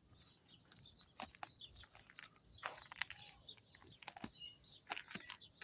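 Faint, irregular crackles and crunches of thick ice glaze, a few sharp clicks a second.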